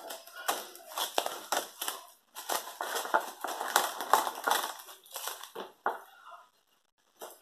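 Irregular dry crunching and crackling: a quick run of short, crisp crushing noises for about six seconds, then a brief pause and one more short crunch near the end.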